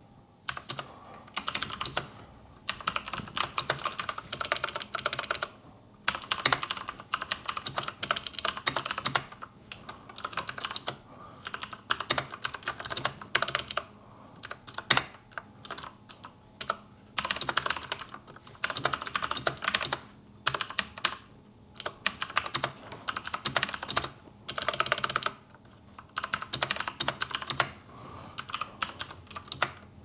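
Mechanical keyboard typing: a Keychron C2 fitted with NovelKeys Sherbet tactile switches, keys clacking in quick runs of a second or three broken by short pauses.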